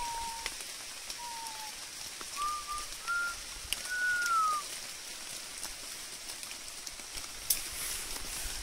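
Light rain falling steadily, a soft hiss with scattered drip ticks. Over it, a few short clear whistled notes, some gliding down and some up, in the first half.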